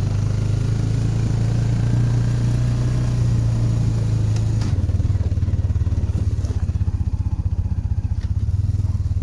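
Quad bike engine running at a steady low speed over a rough dirt track. About five seconds in, its note starts to throb rapidly.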